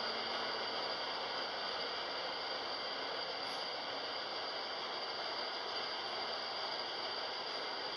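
Steady hissing drone of a passenger ferry's interior while underway, from its engines and ventilation, with a few faint steady high tones running through it.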